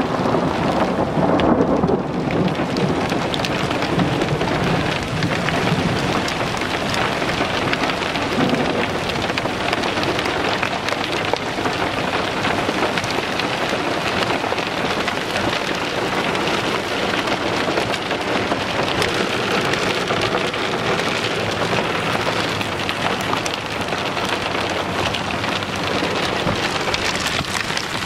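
Small hailstones pelting the asphalt and the car in a steady, dense patter, with a low rumble of thunder dying away in the first couple of seconds.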